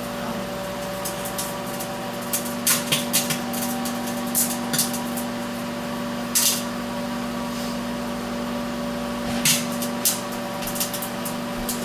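Microwave oven running with a steady hum while a CD inside it sparks, giving irregular sharp crackles and snaps from arcing on the disc's metal layer.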